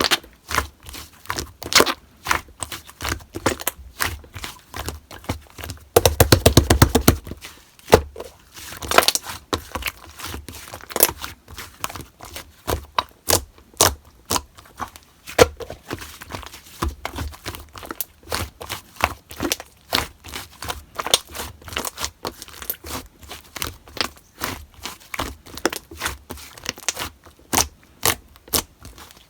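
Slime being squished, poked and stretched by hand, making a constant run of sharp clicking and popping sounds. About six seconds in there is a second-long burst of very rapid pops.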